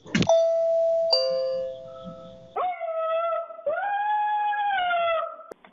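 A two-note electronic doorbell chime, the second note about a second after the first, both fading out. Then a dog howls twice, the second howl longer, rising a little in pitch and holding before it falls away.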